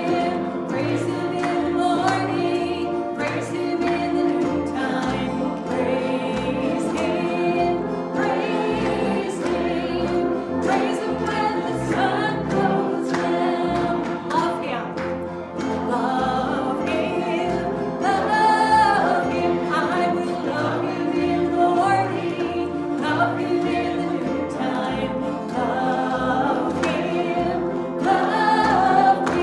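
A choir singing a gospel-style song with instrumental accompaniment and a stepping bass line.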